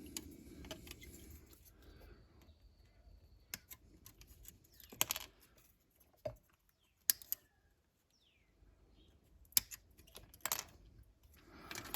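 Sprue snips cutting plastic model-kit parts off the sprue: several sharp, separate snaps, the first about five seconds in, with faint handling of the parts in between.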